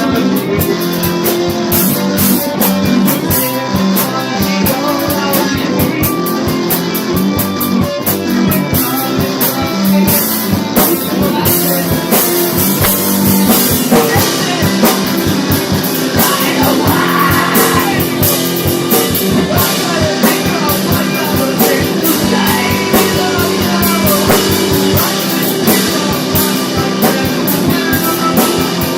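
Rock band demo recording: guitar and drum kit playing together, with a driving beat of rapid cymbal and drum strokes, loud and steady.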